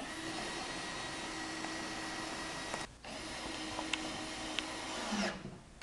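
Cordless drill/driver running on a compressor enclosure's panel screw: a steady motor whine for almost three seconds, a brief stop, then a second run of a little over two seconds.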